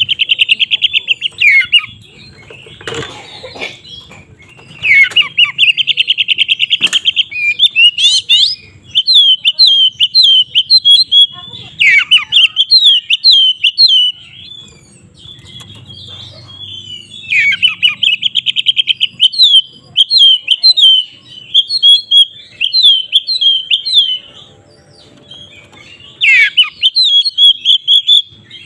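Oriental magpie-robin (kacer) singing loudly in its aggressive fighting song. Fast rattling trills alternate with runs of sharp, quickly repeated whistled notes, with short pauses between phrases.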